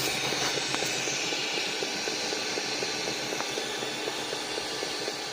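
Hot air rework gun blowing with a steady hiss while melting solder on a circuit board, with a few faint clicks.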